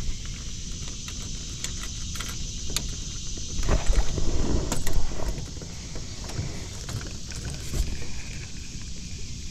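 Fishing from a jon boat: scattered light knocks and clicks over a steady low rumble, with a louder stretch of handling noise about four seconds in.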